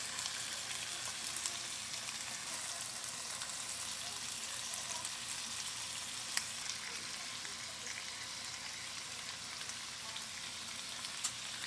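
Chicken skewers frying in oil in a skillet: a steady sizzle with a few sharp pops of spattering fat.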